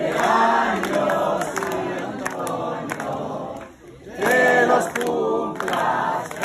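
A group of people singing together, several voices at once. There is a brief break about two-thirds of the way through, then a louder held note.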